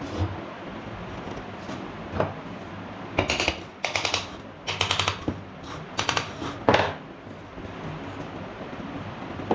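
Rapid metallic clicking and rattling from hand tools at work on a water pump, in five short bursts between about three and seven seconds in.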